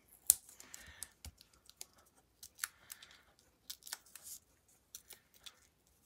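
Fingers handling a piece of cardstock and pressing small foam adhesive dimensionals onto it: faint, scattered light clicks, taps and paper rustles, the sharpest tap about a third of a second in.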